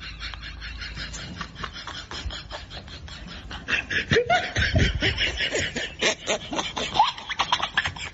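A person snickering and laughing in rapid pulses, getting louder about four seconds in.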